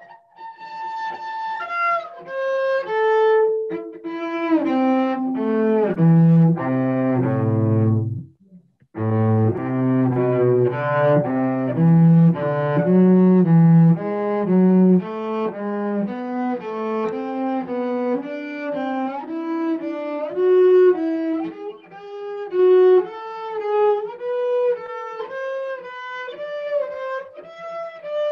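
Solo cello bowed through scale practice: a scale stepping down note by note into the low register, a short break about eight seconds in, then the notes zigzag back up in broken thirds.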